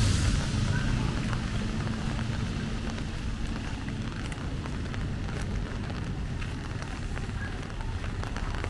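Rain on a street: a steady hiss with scattered light ticks, while a passing vehicle's engine fades away over the first few seconds.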